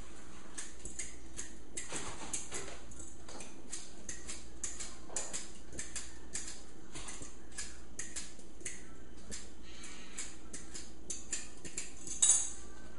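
Ginger root being peeled by hand over a cutting board: a run of short, irregular scraping strokes over a steady low hum, with a louder clatter near the end.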